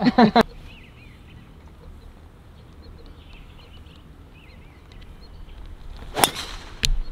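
A golf driver strikes a ball off the tee: one sharp crack about six seconds in, followed by a shorter click. Birds chirp faintly beforehand.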